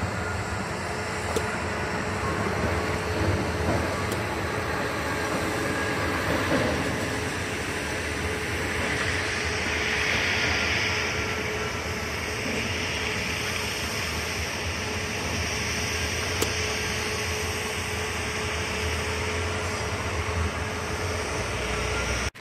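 Train running: a steady rumble with a constant humming tone, and a hiss that swells about halfway through.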